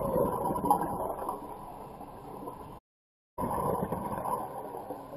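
Underwater audio of scuba divers' exhaled regulator bubbles gurgling and rumbling, loud at first and fading over a few seconds. It cuts out for about half a second a little after halfway, then returns loud and fades again.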